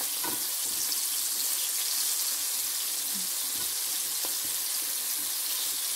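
Flour-coated shrimp deep-frying in hot oil in a wok: a steady sizzling hiss with a few faint pops.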